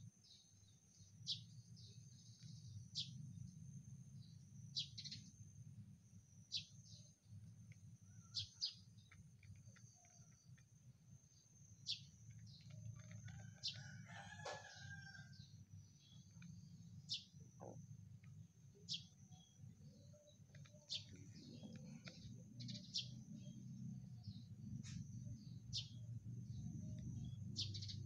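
Faint outdoor ambience: small birds chirping in short high notes every second or two over a steady high whine and a low rumble. A rooster crows once, about halfway through.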